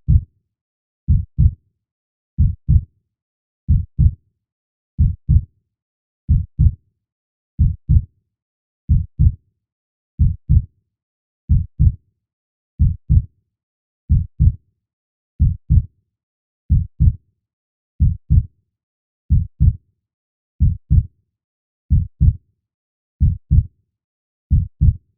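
Slow, steady heartbeat of low, paired lub-dub thumps, about one pair every 1.3 seconds, with silence between the beats.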